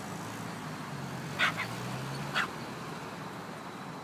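Small chihuahua-type dog barking twice from inside a car, about a second apart, the first bark a quick double yap, heard through the closed car window over a steady low hum.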